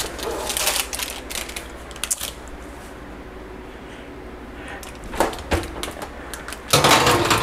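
Kitchen handling noises from a parchment-lined baking sheet and an electric wall oven: a run of light clicks and rattles, a few knocks about five seconds in, then a louder clatter near the end.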